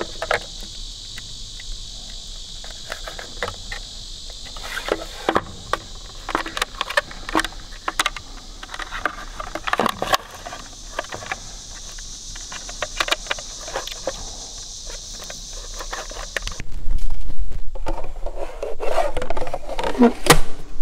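Small clicks and fiddling as spade connectors are pushed onto the terminals of a sealed lead-acid battery in a plastic battery box, over a steady high insect buzz. About 17 s in, louder scraping and rubbing takes over as the plastic cover is worked onto the battery box.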